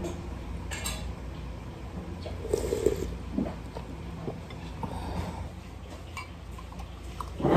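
Eating and drinking sounds at a table: a ceramic soup spoon clinking in a ceramic noodle bowl, and sips and slurps of noodle soup. A steady low hum runs underneath, and a louder sip or slurp comes near the end.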